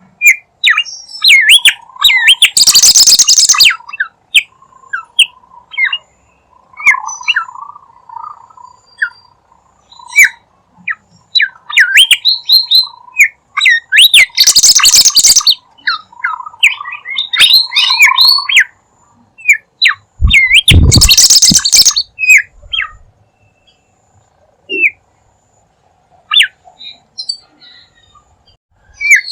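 A bimoli bird singing hard in a lure-call recording: quick runs of chirps and whistled notes that slide up and down. Three times the song is broken by a loud, harsh noisy burst lasting a second or two.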